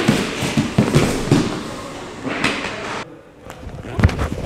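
Bare feet and bodies scuffing and thudding on grappling mats during a takedown drill: a busy rush of scuffling with several thumps, which drops off suddenly about three seconds in, followed by a few sharp thumps near the end as a knee goes down onto the mat.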